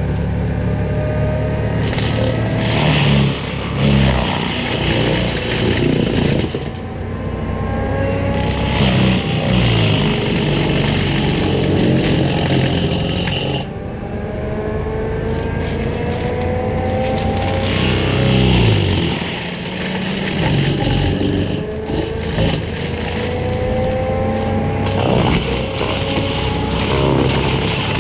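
Forestry mulcher running under load, its engine working steadily as the mulching head grinds through brush, with the pitch and loudness rising and falling as it bites in.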